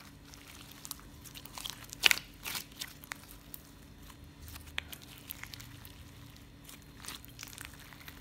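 Beaded slime being squeezed and stretched by hand, giving irregular sticky pops and crackles, with one louder pop about two seconds in.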